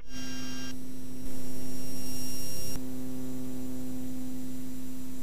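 Steady drone of a King Air B100's twin Garrett TPE331 turboprops and propellers heard in the cockpit in cruise descent, with a few fixed tones under an even hiss. About a second in, the hiss grows louder for roughly a second and a half, then drops back.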